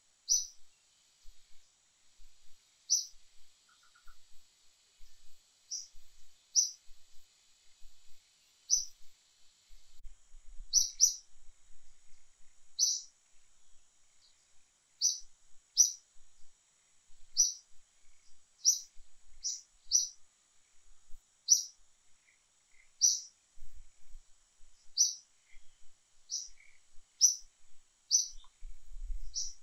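A bird calling over and over: short, high chirps, one every second or two, some in quick pairs.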